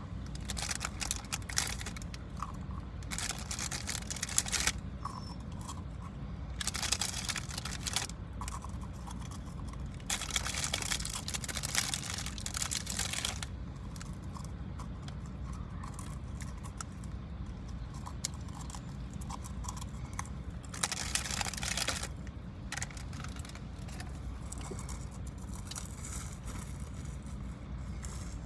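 Crinkling and tearing of a plastic cracker-pack wrapper and peanut butter sandwich crackers crunching, in several bursts of one to three seconds with smaller crackles between, over a steady low rumble.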